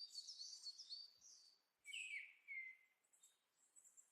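Faint bird chirping: a quick run of short, high chirps in the first second or so, then two more chirps about two seconds in.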